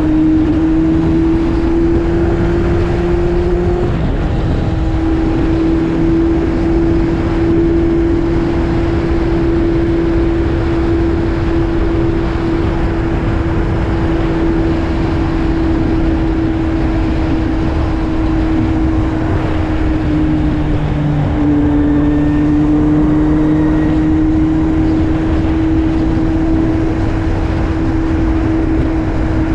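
Kawasaki Z750 inline-four with an Arrow aftermarket exhaust under way, its engine note climbing slowly. The note drops briefly about four seconds in and again around twenty seconds in, over a steady rush of wind and road noise.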